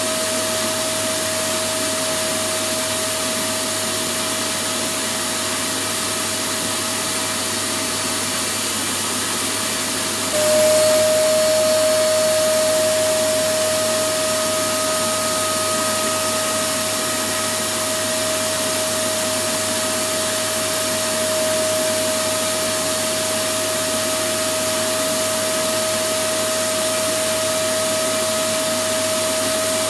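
Electric vacuum cleaner running steadily: a constant rushing hiss with a steady motor whine. About ten seconds in it gets a little louder and the whine drops slightly in pitch, then the level eases back.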